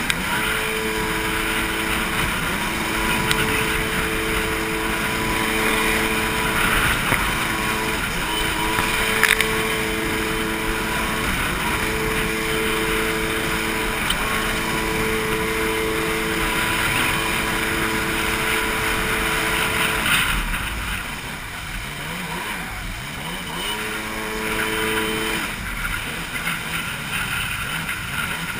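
Jet ski engine running at speed over the hiss of water spray, its note dipping briefly in pitch every few seconds. About two-thirds of the way through, the engine note drops away and the sound gets quieter. It picks up again briefly, then drops away once more near the end.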